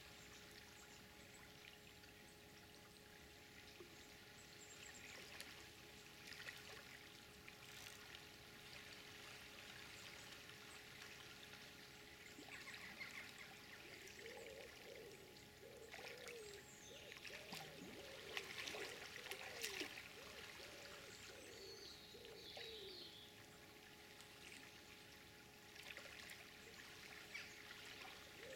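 Faint river water flowing and trickling. Faint short bird calls come and go from about halfway through.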